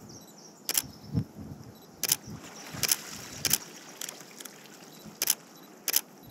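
Camera shutter firing again and again: about six sharp clicks at uneven intervals.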